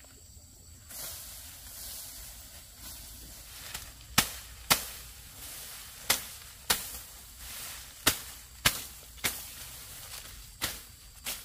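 A blade chopping through lemongrass stalks: about nine sharp strikes, many in quick pairs, starting about four seconds in, over a steady rustle of grass leaves.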